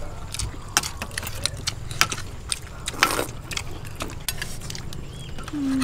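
People eating with spoons from a metal bowl: scattered sharp clicks and taps of spoons and chewing, with a longer scraping noise about three seconds in.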